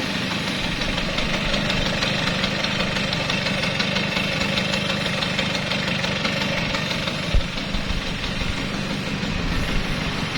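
2003 Vespa Exclusive 2 scooter's two-stroke single-cylinder engine idling steadily, with one short low thump about seven seconds in.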